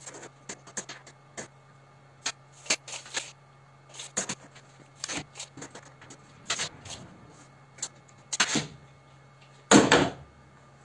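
Retractable steel tape measure handled on a workbench: a string of small clicks and scrapes as the blade is laid out and pen marks are made, then a louder half-second rattle near the end as the blade retracts and the case is set down.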